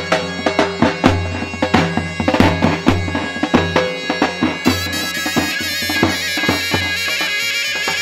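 Zurnas playing a folk dance tune together over the beat of a large drum. The drum strokes thin out about halfway through.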